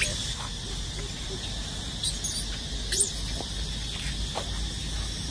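Steady drone of insects, with a few short high chirps or squeaks about two, three and four seconds in.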